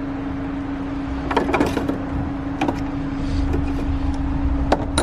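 A few sharp clicks and knocks of parts and tools being handled during engine-bay reassembly, over a steady hum.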